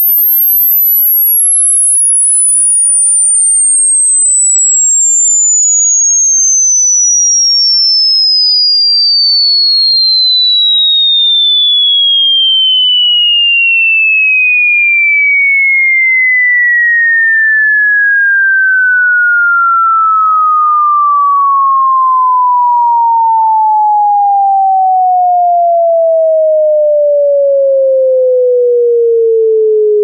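A pure sine-wave test tone sweeping steadily down in pitch, from a very high, thin whistle near the top of hearing to a mid-low tone, at a constant level. It is a frequency sweep for testing a speaker's or headphones' bandwidth; it should sound clean and smooth all the way down.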